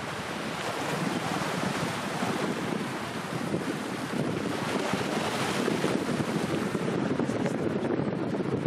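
Wind buffeting the microphone over the steady wash of choppy sea water.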